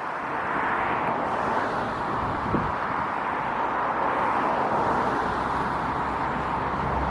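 Road traffic passing, a steady rush of tyre and engine noise that swells and eases.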